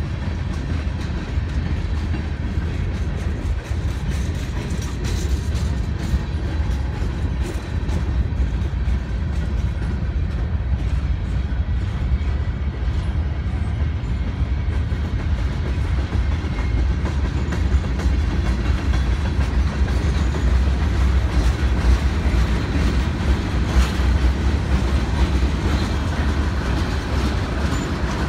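A slow-moving freight train's cars rolling past: a steady low rumble of steel wheels on rail, with occasional clicks at the rail joints.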